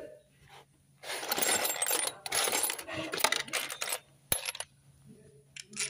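Loose metal parts clinking and rattling in dense bursts from about a second in until nearly five seconds in, with a single sharp click near the end of the clatter.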